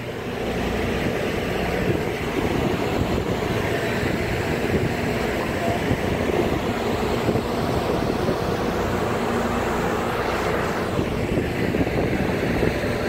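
A tender boat under way, its engine droning steadily over a constant rush of noise.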